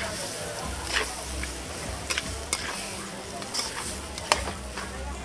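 Fried rice sizzling in a wok while a metal spatula stirs and scrapes it, with several sharp clanks of the spatula against the wok.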